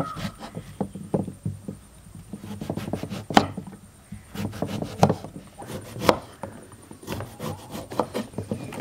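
A large kitchen knife chopping brinjal (eggplant) on a wooden chopping board: an irregular run of knocks as the blade goes through and strikes the wood, with a few sharper, louder strikes.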